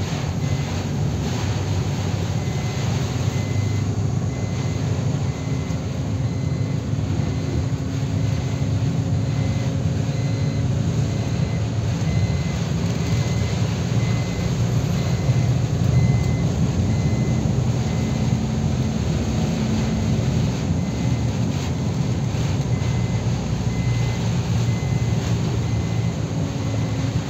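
Truck engine running steadily from inside the cab while driving on a rain-soaked road, with a hiss of tyres and rain under it. A faint, evenly repeating high beep sounds through much of it.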